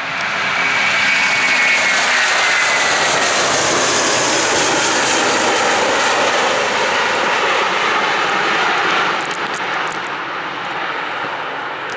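Airbus A330's twin jet engines at take-off thrust as the airliner lifts off and climbs away: a loud, steady roar with a whine that falls in pitch over the first few seconds, easing off about nine seconds in.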